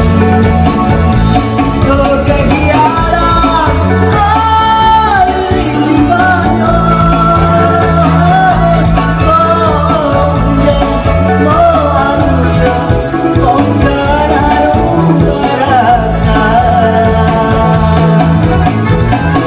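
Music: a song with a held, wavering sung melody over guitar and a steady bass line.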